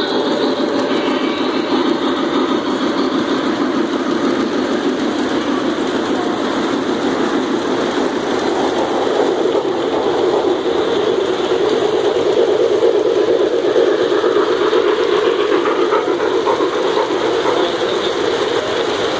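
Model trains running close by on a layout, a steady rumble and clatter of metal wheels on track.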